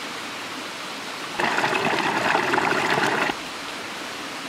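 A small stream running steadily, with a louder rush of water for about two seconds in the middle that starts and stops suddenly.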